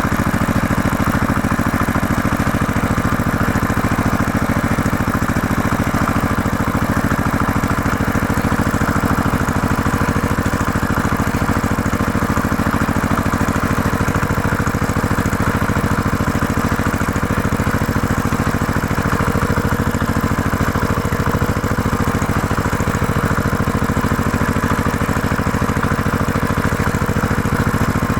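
Tractor engine running at a steady, unchanging speed with an even rumble, like an idle.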